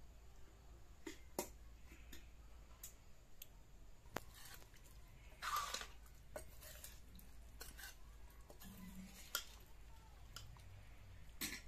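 Metal serving spoons clinking and scraping against a metal wok, pot and steel plates as rice and fish curry are served: a scatter of sharp, light clinks with a louder clatter about halfway through.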